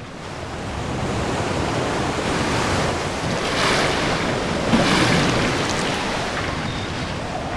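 Storm sea: heavy waves surging and crashing with wind, swelling louder twice near the middle.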